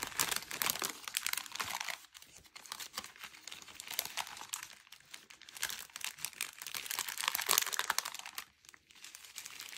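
Clear plastic bag full of small zip-lock bags of diamond-painting drills crinkling as hands squeeze and turn it, in three spells of crackling with short pauses between.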